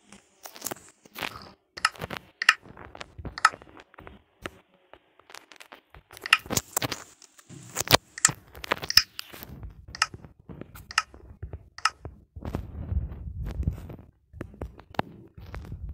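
Wood being worked with hand tools: irregular sharp knocks and cracks, several with a brief ring, and a low rumble for about two seconds near the end.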